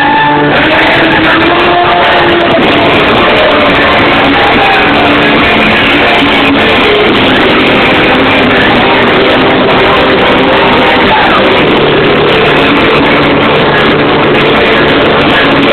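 Live metal band playing loud, heavily distorted music recorded through a mobile phone's microphone: a dense wall of guitar and drums, with held notes standing out at the start and again near the end.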